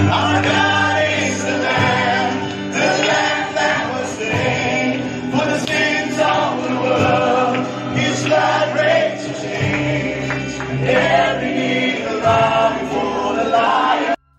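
Church congregation singing a worship song together, led by a live band with electric guitar. The singing cuts off abruptly near the end.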